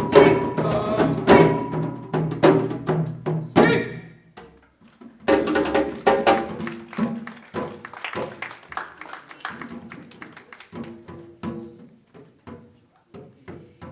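Live hand percussion with pitched notes: a run of strikes, a short pause about four seconds in, then lighter, sparser strikes that fade away.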